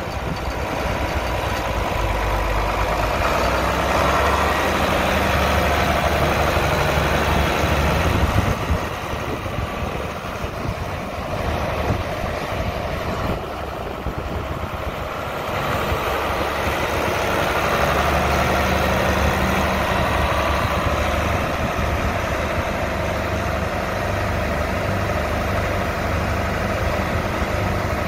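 John Deere 4440 tractor's six-cylinder turbocharged diesel engine running steadily as the tractor drives around. The engine sound drops for several seconds near the middle, then comes back up.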